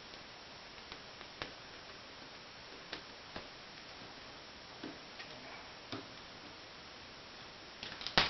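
Scattered small metallic clicks and ticks from a jeweller's screwdriver working the retaining screw in a Leica M6's film rewind knob and from the knob's small metal parts being lifted off, with a louder cluster of clicks near the end.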